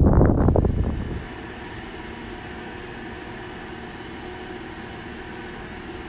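Wind buffeting the microphone for about the first second. Then it cuts off sharply to the steady, even drone of a Case IH tractor heard from inside its cab while pulling a tillage tool through wheat stubble.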